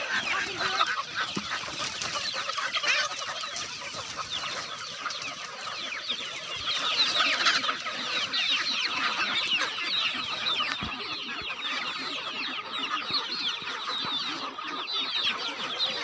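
A large flock of desi chickens clucking and chirping all at once, a dense overlapping chatter that swells about seven seconds in, as the birds crowd in for feed.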